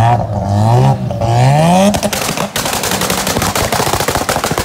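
Sports car engine revved hard twice, its pitch climbing each time. From about two seconds in this gives way to a rapid machine-gun crackle of exhaust pops as the car pulls away.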